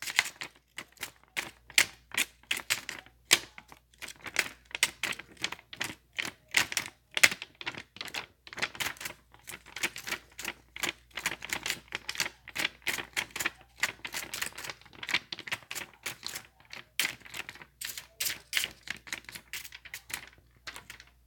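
Fast, irregular key clicks of typing on a white low-profile computer keyboard, several keystrokes a second.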